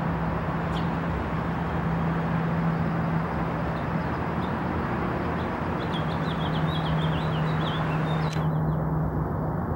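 A house finch singing a quick run of high twittering notes from about six to eight seconds in, with a few single chirps before, over steady city traffic noise with a low hum. The sound turns abruptly duller near the end.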